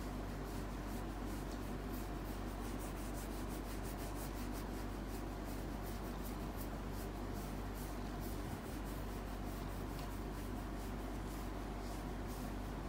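Korat cat purring steadily while its chin is scratched, with the soft rasp of fingers rubbing through its fur. The purr goes with a relaxed, eyes-closed cat, a sign of contentment.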